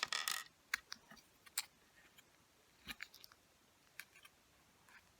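Plastic parts of a 1980s Gunpla model kit handled and pressed together: a sharp click at the start with a short rustle, then a few scattered small clicks and taps.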